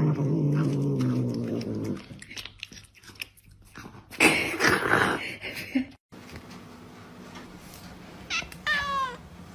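A cat growls in a long, low, drawn-out yowl while gnawing at food it holds in its paws, followed by noisy chewing. After a cut, a second cat gives two short meows that fall in pitch near the end.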